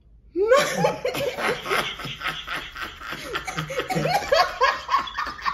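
Two women laughing together. The laughter breaks out about half a second in and carries on as quick, repeated bursts of giggling and chuckling.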